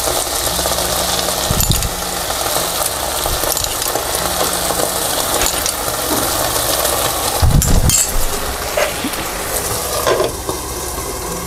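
Quail eggs frying in hot oil in a nonstick pan, a steady sizzle fed by water just dripped around the edges to steam them soft, with a couple of low bumps. About ten seconds in, a glass lid is set on the pan and the sizzle turns more muffled.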